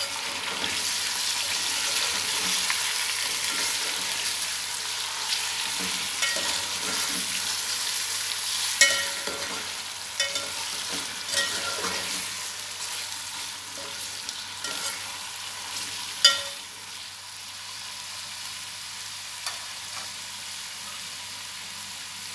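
Raw chicken pieces sizzling in hot oil with fried onions in an aluminium pot while they are stirred and turned over. A metal spoon clinks against the pot several times, loudest about 9 and 16 seconds in, and the sizzle eases a little after that.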